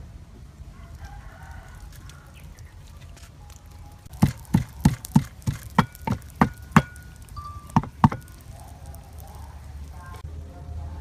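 Wooden pestle pounding in a mortar: about ten sharp strikes, roughly three a second, starting about four seconds in and stopping about four seconds later.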